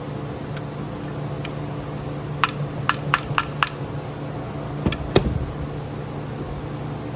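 Sharp small metal clicks and taps of carburetor parts being handled during teardown: a quick run of five clicks about two and a half seconds in, and two more around the five-second mark, over a steady background hum.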